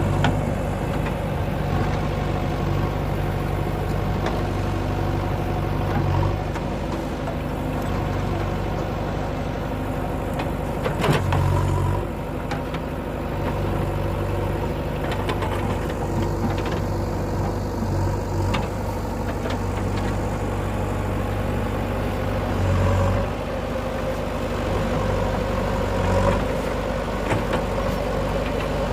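JCB 3DX backhoe loader's diesel engine running steadily while it works, swelling briefly a few times under hydraulic load, with a sharp knock about eleven seconds in.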